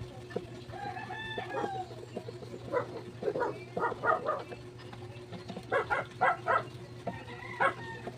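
Chickens clucking in short clustered bursts, with one drawn-out call about a second in, over a steady low hum.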